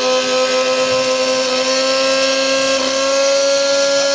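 Croma 500-watt mixer grinder's motor running: a loud, steady whine with a strong hum beneath it, its pitch creeping slightly upward.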